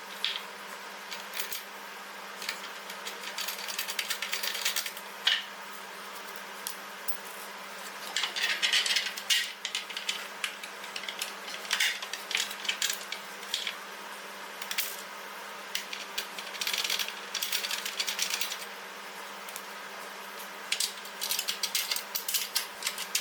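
Metal clicking and rattling in irregular bursts as bolts and washers are fitted and tightened with a multi-wrench on an exercise bike's front base, over a steady low hum.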